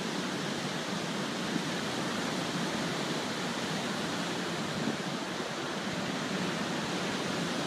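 Rough ocean surf breaking along a beach, heard from high above as a steady, even rush of noise with no single wave standing out.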